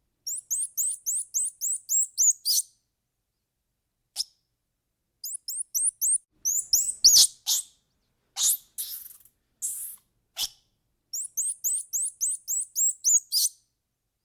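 Small bird chirping: three runs of rapid, high-pitched chirps, about four a second, each lasting two to three seconds, with a few single sharp chirps between them.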